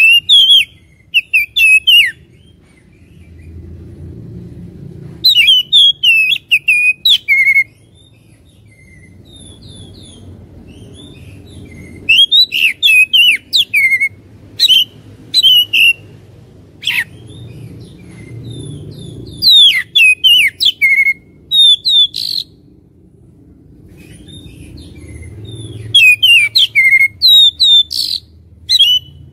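Oriental magpie-robin (kacer) singing its loud, heated territorial song: about six bouts of rapid, sliding whistles and chatter, separated by pauses of a few seconds, over a low steady background rumble.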